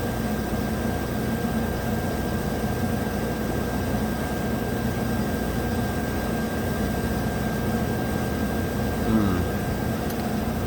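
2016 VW 1.8 TFSI turbocharged four-cylinder engine idling steadily but not smoothly, misfiring mainly on cylinder 4.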